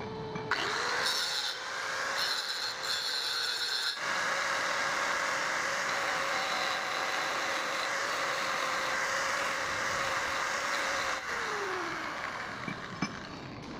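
Handheld angle grinder with an abrasive disc grinding a steel workpiece: a few short touches, then steady grinding for several seconds over the motor's whine. About eleven seconds in, the grinder is switched off and its whine falls as the disc spins down.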